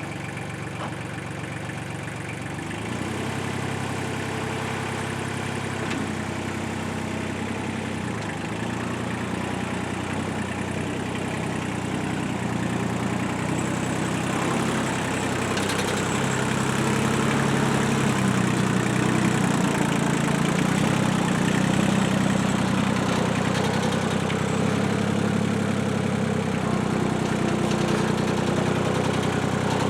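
Heavy equipment engine running steadily, with small changes in pitch, growing gradually louder over the first half and then holding.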